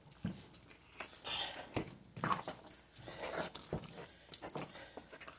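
Wooden spoon stirring a thick, wet mash of bitter leaves, ground peanut and meat in a pot: soft squelches with irregular light knocks of the spoon against the pot.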